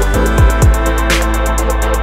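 Background music with an electronic beat: deep kick drums that drop in pitch, a fast steady hi-hat tick and a snare hit about a second in, over held synth tones.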